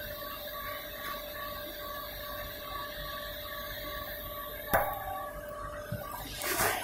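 Karnaval cotton candy machine running: its spinning head and motor give a steady hum with a tone that pulses several times a second. A sharp click comes about three-quarters of the way through, and a brief rustling noise near the end.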